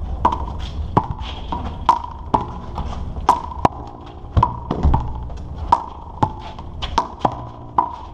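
Handball rally: a small rubber ball is slapped by hand, smacks against the concrete wall and bounces on the court, a quick irregular run of sharp smacks, many with a brief ring, over a low steady rumble.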